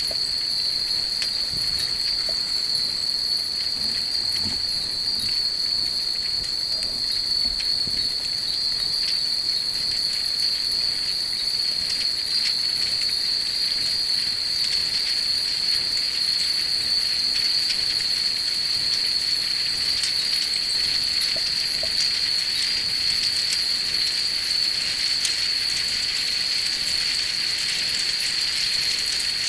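Many Japanese wind chimes (fūrin) tinkling faintly and irregularly in the breeze, the small clinks thickening in the second half, over a steady high-pitched whine.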